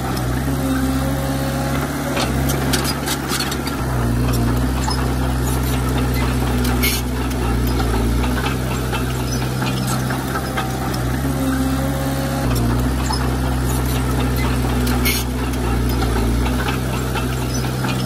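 Bulldozer's diesel engine running as it pushes soil, its low note shifting a couple of times, with scattered sharp clanks.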